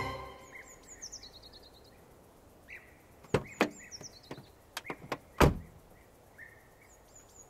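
Faint bird chirps, short and falling in pitch, scattered over a quiet background, with a handful of sharp knocks or taps about halfway through, the last and loudest about five and a half seconds in.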